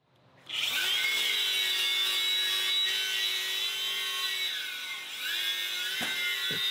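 Angle grinder with a paint-stripping disc spinning up, then grinding old paint and rust off a steel wagon wheel rim. The motor pitch sags as the disc bites under load, about four and a half seconds in and again near the end, then recovers.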